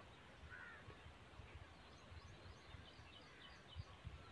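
Near silence: faint low background rumble with a few faint bird chirps, about half a second in and again around three seconds in.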